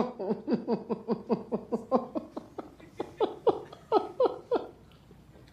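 A man's uncontrollable laughing fit: a rapid run of short 'ha' bursts, about four or five a second, each dropping in pitch. The bursts space out and stop about four and a half seconds in.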